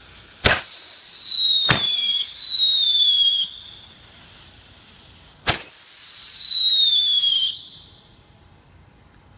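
Three whistling fireworks going off, each starting with a sharp crack and then a loud high-pitched shriek that falls slowly in pitch for two to three seconds. The second starts while the first is still whistling, and the third comes a few seconds later.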